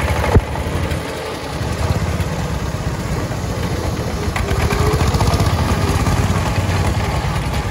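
Single-cylinder diesel engines of two-wheel power tillers chugging steadily with an even firing beat. A sharp knock comes about half a second in.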